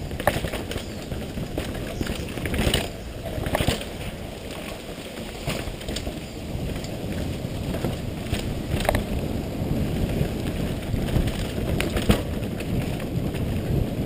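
Downhill mountain bike descending rough trail: a steady rumble of wind and tyres on the helmet-mounted microphone. Sharp knocks and rattles come now and then as the bike hits bumps.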